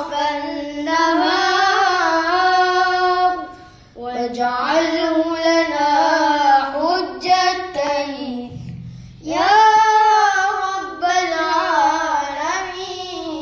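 A young solo voice singing long, wavering, ornamented melodic phrases with no instruments, breaking off twice for breath.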